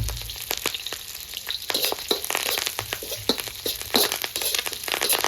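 Onions, cumin and mustard seeds and fresh curry leaves sizzling in very hot oil in a pan, with frequent sharp crackles and pops. A dull bump right at the start.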